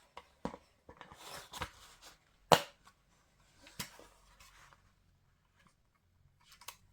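Hard plastic toy parts handled and pushed together as a toy horse is fitted onto its plastic display stand: soft rustling with light clicks, and one sharp plastic click about two and a half seconds in, followed by a smaller one about a second later.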